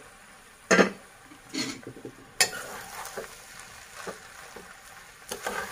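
A spoon stirring cooked vermicelli pulao in a metal pot, with a few sharp clinks and scrapes against the pot in the first two and a half seconds, then a steady soft sizzle with small clicks as the food is turned over.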